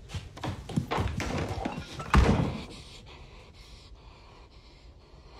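A run of sharp knocks and thuds building to one heavy slam about two seconds in, then dying away: a door banging shut.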